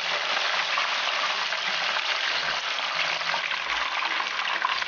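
Starch-coated chicken wings deep-frying in hot oil during their second fry for crispness, the oil hissing steadily with fine crackling.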